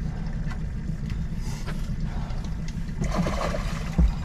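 Hooked coho salmon splashing at the surface beside the boat about three seconds in, over a steady low hum, with a sharp thump against the boat near the end.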